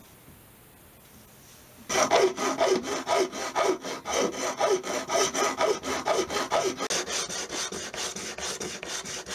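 Hand sanding of a guitar nut blank held in a wooden jig: quick back-and-forth rasping strokes, a couple a second, that start about two seconds in after a short quiet stretch.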